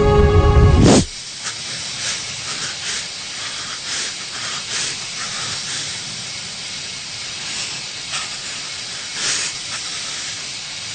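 Music cuts off abruptly about a second in, followed by a steady hiss with soft swells.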